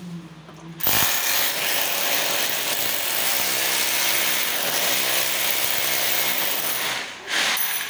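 Handheld electric drill running against a PVC ceiling panel for about six seconds, then stopping, followed by a short second burst near the end.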